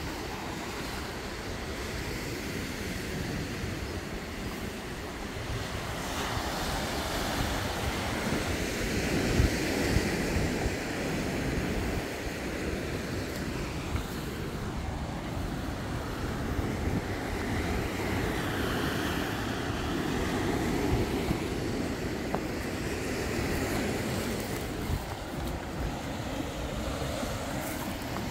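Wind buffeting the microphone over the wash of sea surf on a rocky shore, rising and falling in slow swells.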